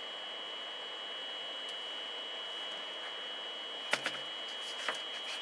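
Steady hiss with a thin, high steady whine, broken about four seconds in by a sharp click and, a second later, a lighter one: handling noise as parts are worked in the loader cab.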